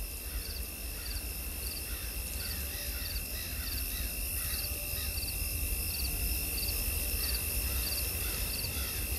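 Nature soundscape played by a generative digital clock artwork: a rhythmic chirping that repeats about three times every two seconds, over a steady low hum.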